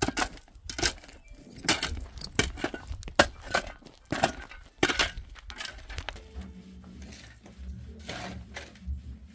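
A rapid, irregular series of sharp knocks and cracks, loudest in the first five seconds, with a few more near the end. A low steady hum comes in about six seconds in.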